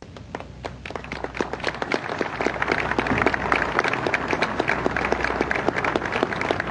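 A large audience applauding: many hands clapping unevenly, swelling louder over the first few seconds and then holding steady.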